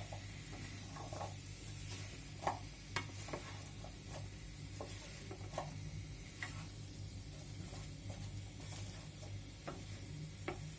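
Diced red pumpkin and onions sizzling in a pan while being stirred, with scattered short scrapes and taps of the spatula against the pan over a steady low hum.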